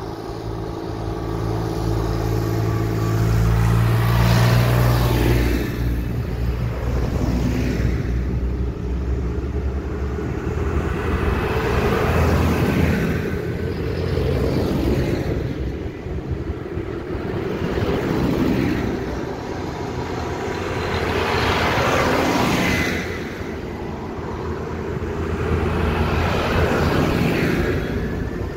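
Diesel farm tractors and cars driving past one after another, each engine swelling and fading as it goes by, with a pitch drop at each pass and tyre noise on the tarmac.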